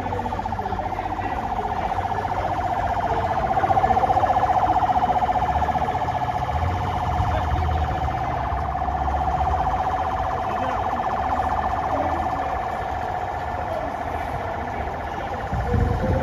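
Motorcade escort siren sounding continuously with a fast warble, loudest a few seconds in, over the low rumble of vehicles moving slowly.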